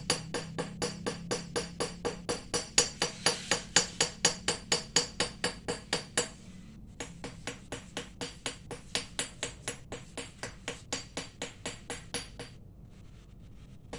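Rapid, even light hammer taps on metal, about four to five strikes a second, each with a short ringing tone; the tapping pauses briefly twice.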